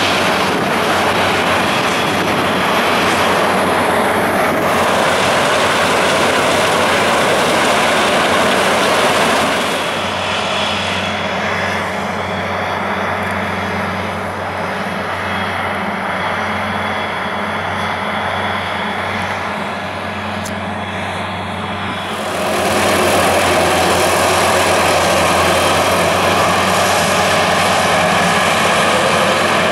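Combine harvester running steadily while threshing wheat and unloading grain into a tractor-drawn grain cart, with the tractor's engine alongside. The sound thins and drops for about twelve seconds in the middle, then returns fuller.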